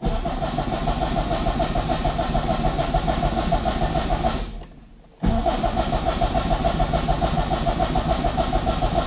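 The starter of a Trabant's rebuilt air-cooled two-cylinder two-stroke engine cranking it over in two long spells, with a short break about four and a half seconds in. The engine turns over steadily without catching.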